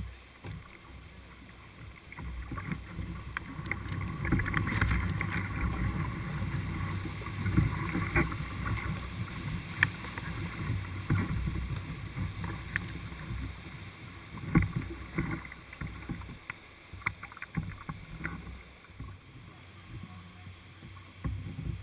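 Whitewater rushing around an open canoe as it runs a rapid, louder through the middle and easing near the end, with scattered sharp knocks.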